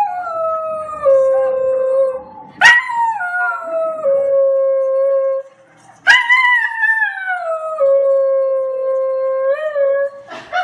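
Small dog howling three times in long drawn-out howls, each starting high, sliding down and then held steady for a few seconds.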